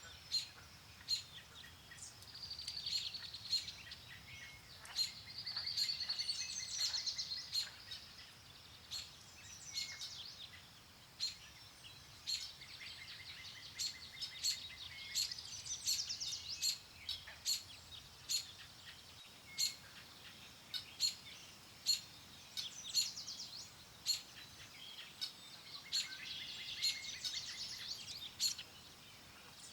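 Songbirds chirping and singing: many short, sharp chirps and repeated trilled phrases throughout, over a faint low wind.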